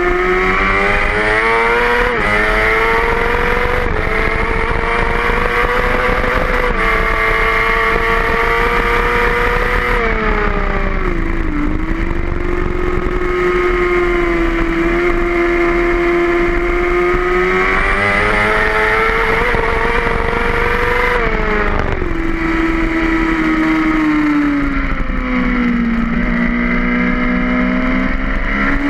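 A racing motorcycle's engine at high revs, heard onboard. It climbs with brief dips at each gear change. It drops twice as the bike slows, about ten seconds in and again about twenty-one seconds in, then builds again near the end.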